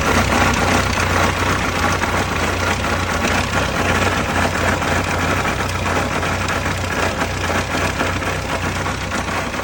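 VAZ 2107 engine idling with a steady, rapid knock from the gearbox area.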